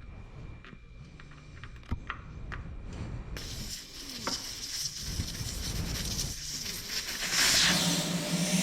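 A few light metal clicks, then air hissing steadily out of an electric bike's tire valve with the valve core removed, starting suddenly about a third of the way in and getting louder near the end: the tire is being deflated.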